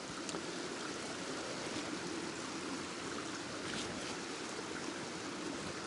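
A stream running steadily, an even rush of flowing water.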